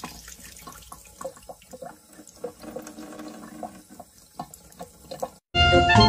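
Kitchen mixer tap running a thin stream of water that spatters into a sink. It cuts off about five and a half seconds in, and loud music takes over.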